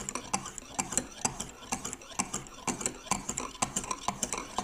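Lansky extra-fine 1000-grit hone stroked back and forth over a clamped steel knife edge: a quick, irregular run of scrapes and clicks of stone on steel as the edge is polished.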